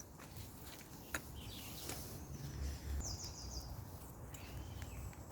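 Faint outdoor ambience: a low background rumble with distant bird calls, including a short high trill about three seconds in.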